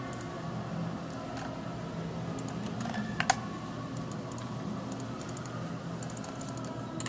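Computer keyboard keys clicking in short, scattered clusters during CAD drafting, the sharpest clicks about three seconds in, over a steady low hum.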